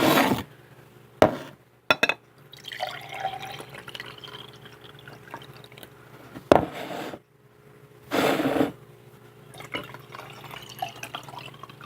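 Water being poured and dripping into drinking glasses: several short splashing pours, each about half a second, with quieter trickling and dripping between them.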